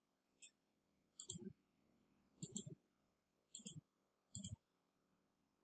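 Computer mouse button clicking about four times, roughly a second apart, each a quick press-and-release tick.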